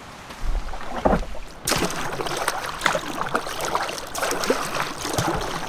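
Canoe paddle strokes: the blade pulling through lake water with splashing and dripping, growing louder and busier about a second and a half in.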